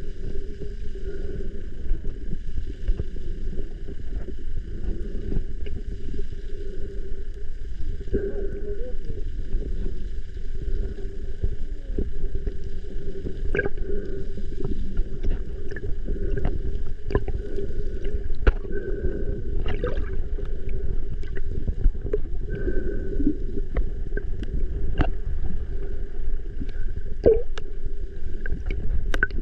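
Underwater ambience picked up by a submerged camera: a steady low rumble and drone, with scattered sharp clicks and pops throughout.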